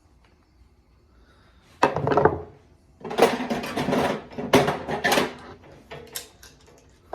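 Hand tool prying metal staples out of a plastic shift boot retainer: four bursts of scraping and clattering.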